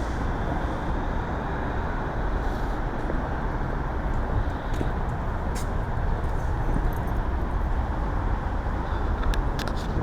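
Steady low rumbling vehicle noise, with a few light clicks near the end.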